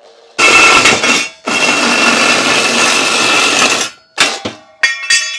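Reciprocating (sabre) saw cutting scrap metal channel in two runs, the second the longer, with the metal ringing under the blade; then a few metallic clanks with ringing near the end.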